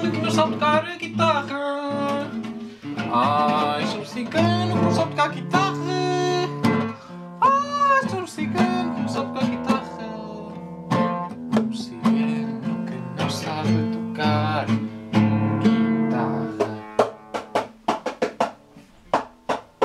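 Acoustic guitar being played, with a voice singing or vocalising along without clear words for the first half. Near the end the playing breaks into short, separate strums that grow fainter.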